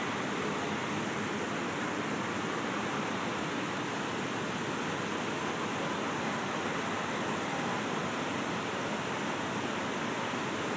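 Steady rush of falling water from an ornamental water garden: an even, unbroken noise.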